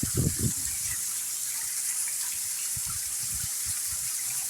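Waterfall rushing in a steady, even hiss. A brief low sound comes just after the start.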